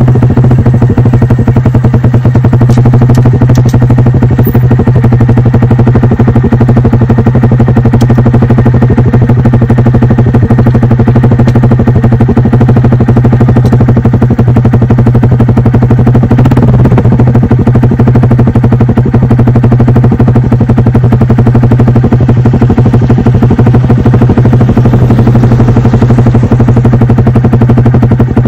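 Honda Monkey 125's single-cylinder engine running steadily through an aftermarket Aodonly Racing high-mount exhaust: a loud, even, rapid exhaust beat that holds one pitch with no revving.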